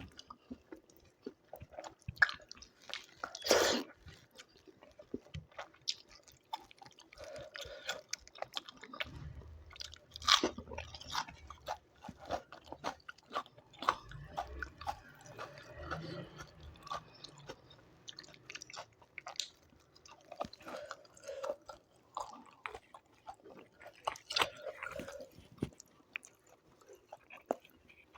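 Close-up eating sounds: a person chewing a meal of rice and doi chicken, with crisp crunches of raw salad vegetables and scattered louder bites.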